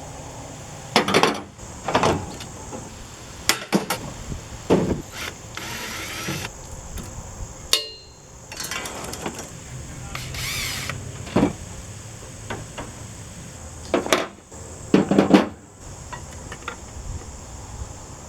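Tools working on the metal of an air conditioner being scrapped: irregular sharp clanks and knocks, about ten strikes, with two brief high squeals and a ringing strike in the middle.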